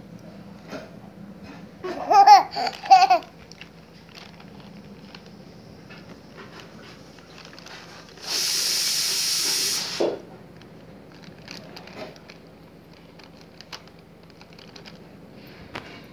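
A young child giggles in a short burst of laughter about two seconds in. About eight seconds in comes a steady hiss lasting nearly two seconds that cuts off suddenly, with faint scattered clicks throughout.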